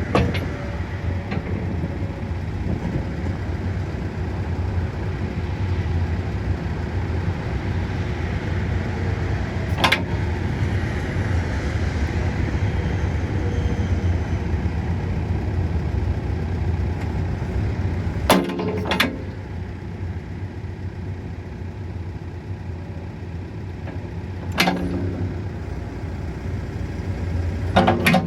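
Diesel engine of a Case 580SN backhoe running steadily, with a few sharp metal clanks from the machine now and then.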